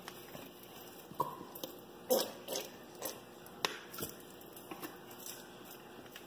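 Plastic squeeze bottle of barbecue sauce being squeezed over a crock pot of shredded meat: a series of short squirts of sauce and clicks of the bottle and cap.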